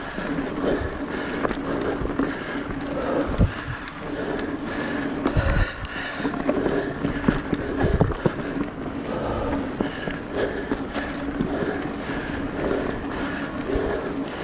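Mountain bike being ridden over a dirt singletrack: steady tyre noise with the bike rattling, and a few heavy low thumps as it hits bumps in the trail.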